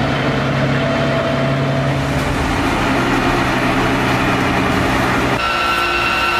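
Heavy multi-axle mobile missile launcher's engine running steadily as the vehicle drives. About five seconds in, the sound cuts abruptly to a steady higher-pitched whine.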